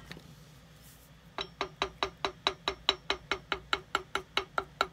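Cobbler's hammer tapping a shoe upper on an iron shoe last: light, quick, even taps about five a second, each with a short metallic ring, starting about a second and a half in.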